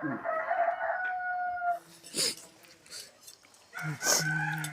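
A dog whining or howling in one long, high, steady note that lasts a little under two seconds. Near the end comes a lower held sound.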